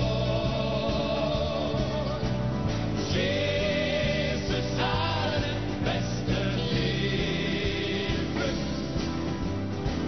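Live gospel worship music: a group of singers and a choir singing a slow hymn-like melody with long held notes, over a band with acoustic guitars and bass.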